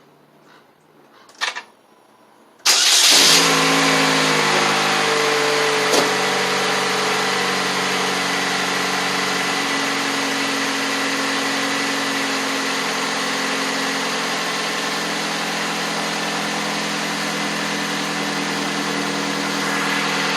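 A 2007 Saturn Vue's 2.2-litre four-cylinder engine starts about three seconds in, after a short knock. It then settles into a steady idle, run after an oil change so the fresh oil circulates through the engine.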